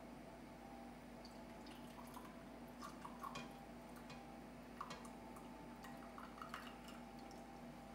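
Faint sauce dripping and trickling from a tilted skillet into a small ceramic pitcher, with a few light clicks of a utensil against the pan.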